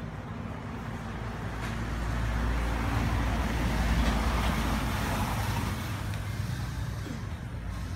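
A motor vehicle passing by on the street: a low engine rumble with road noise that swells to its loudest about halfway through and then fades.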